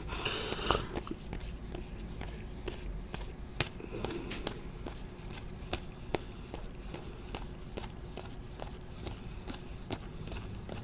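A stack of 2017-18 Donruss basketball trading cards being thumbed through by hand, one card at a time, each slid off the pile with a soft click in a quick, irregular run.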